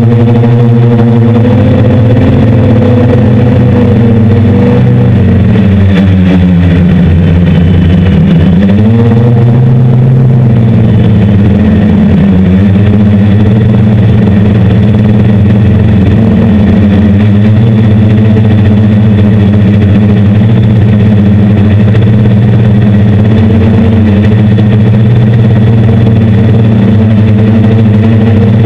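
Hexacopter's six brushless motors and 10-inch propellers droning steadily. About six seconds in the pitch sinks for a couple of seconds and then climbs back, with a shorter dip a few seconds later.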